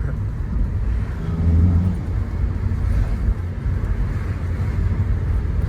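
Honda K20 four-cylinder engine running under way with steady road noise, heard from inside the car's cabin. The engine note swells briefly about a second and a half in. The car is driving on a freshly fitted stage 2 clutch.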